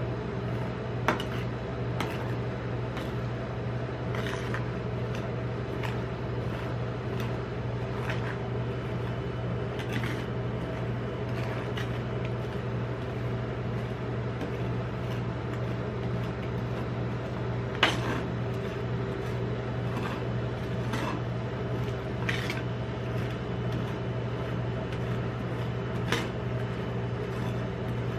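Metal spatula scraping and spreading ice cream mixture across a chilled steel ice-cream-roll plate, with a few sharp taps of the spatula on the metal, over a steady low hum.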